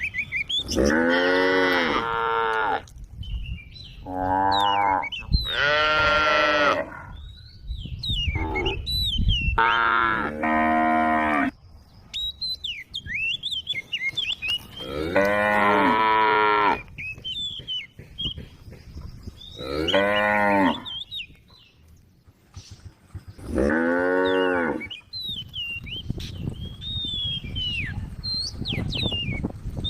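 Cattle mooing over and over: about ten long calls of a second or two each, from more than one cow, some close together and some several seconds apart.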